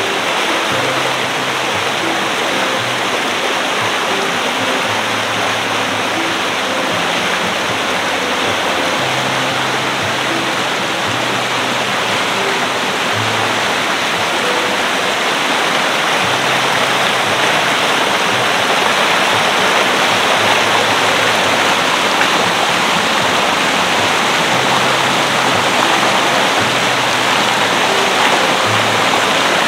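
Rushing river water, a steady loud rush that grows slightly louder in the second half, with faint background music notes underneath.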